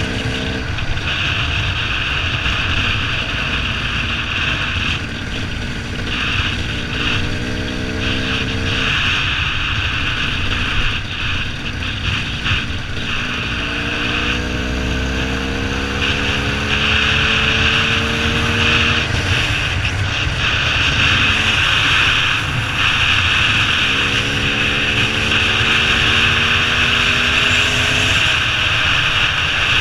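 KTM dirt bike engine running at speed, its pitch climbing three times as the rider pulls through the revs, under heavy wind noise on a helmet-mounted microphone.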